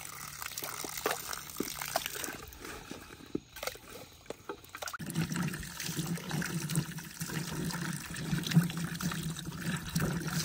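Water sounds as sweet potatoes are washed by hand in a bucket of water: splashing and light knocks at first, then, from about five seconds in, a steady run of water filling a container.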